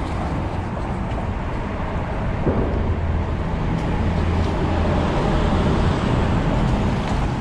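Steady low rumble of wind on the microphone, with small waves washing against shoreline rocks.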